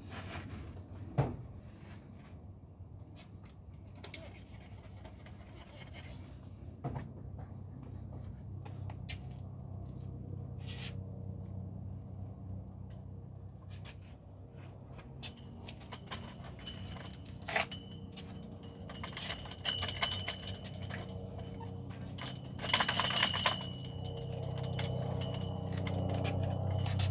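Scattered clicks, taps and scrapes of hands and tools handling a replacement windshield on a stand, with one louder rustling scrape near the end. A steady low hum grows louder through the second half.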